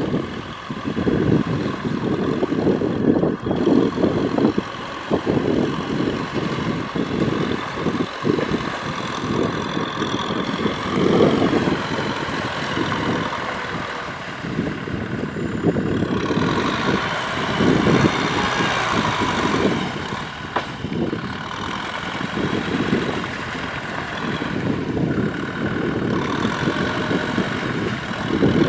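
Tractor diesel engine running under heavy, varying load while working through deep mud, its note rising and falling unevenly, with a higher whine coming up about halfway through.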